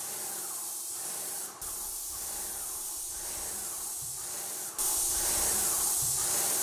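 Airless paint sprayer spraying primer: a steady, high hiss from the spray gun. It breaks off briefly about a second and a half in and is louder from about five seconds in.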